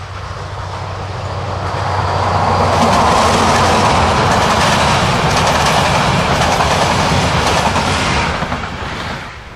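A class 223 Siemens Eurorunner diesel locomotive and its express coaches pass at speed. The engine hums low and the wheels clatter over the rail joints. The sound builds over the first two seconds, stays loud for about six seconds, then fades near the end.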